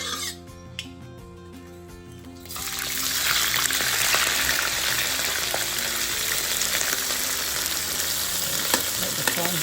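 Background music, then about two and a half seconds in, raw prawns go into hot oil in a wok and set off a loud, steady sizzle of shallow-frying.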